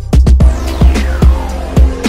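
Electronic background music with a steady kick-drum beat and a tone sweeping downward in pitch.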